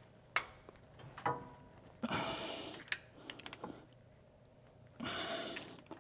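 Socket ratchet working the bolts on a rear differential cover. There is a sharp snap as a bolt breaks loose, another about a second later, then two spells of quick ratcheting clicks, each under a second long.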